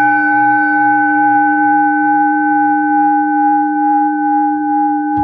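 A singing bowl ringing after a single strike: one long, steady tone with several unevenly spaced pitches that waver slightly, beginning to fade near the end.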